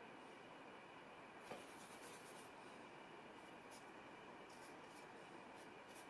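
Faint scratchy strokes of a flat hog-bristle brush laying oil paint onto paper: a longer stroke about a second and a half in, then a few short ones, over a steady low hiss.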